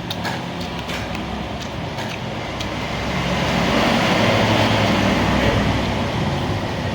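Road traffic noise, a steady rushing that swells about halfway through as if a vehicle passes, then eases off, with a few faint clicks.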